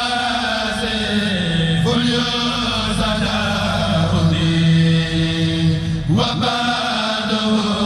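A kourel, a Mouride chanting group, chanting a khassida in unison, with long held notes that change pitch every second or two and a quick upward slide about six seconds in.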